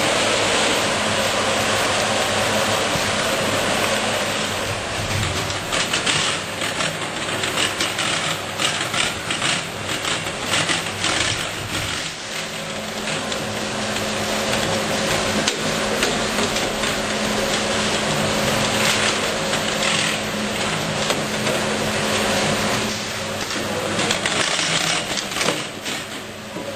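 BVM Compacta packaging machine running: a steady mechanical noise with fast, irregular clicking and clatter, and a low steady hum that sets in about halfway through.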